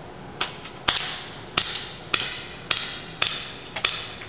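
Gas-powered airsoft pistol firing a steady string of about seven shots, roughly two a second, each a sharp crack with a short echo; a couple of shots are followed at once by a second click.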